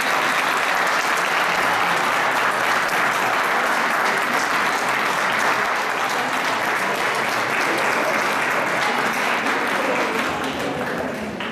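Audience applauding: many people clapping steadily, easing off near the end.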